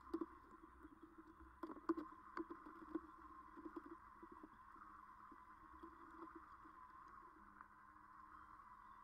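A folding lounge chair's metal frame clacking and knocking against a boat deck as it is unfolded and set down, a scatter of light knocks over the first four seconds or so; after that only a faint steady hum.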